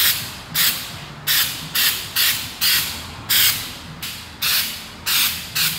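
Aerosol can of Flex Seal liquid rubber coating spraying in a string of short hissing bursts, about two a second, as a wire mesh basket is given a rubber coat.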